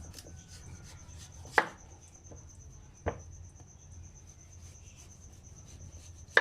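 Kitchen knife and unripe papaya knocking against a cutting board while the papaya is peeled: three sharp knocks, the loudest about a second and a half in, with faint small ticks between.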